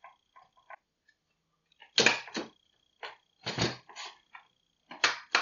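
Handling clatter from a delta 3D printer's aluminium-extrusion frame and its corner pieces as they are gripped and worked together. A few light clicks come first, then a run of sharp knocks starting about two seconds in.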